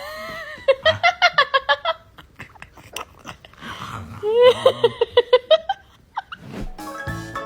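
A person laughing in two quick runs of rapid 'ha-ha' bursts, then light keyboard music starting near the end.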